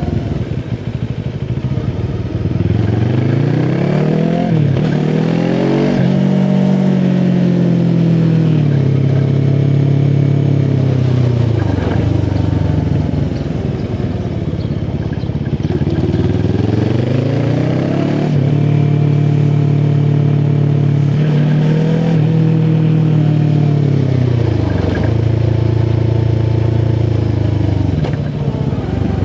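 QJ SRT 450 RX motorcycle engine pulling through the gears twice. Each time the pitch climbs, drops back at each upshift and then falls as the bike eases off and slows.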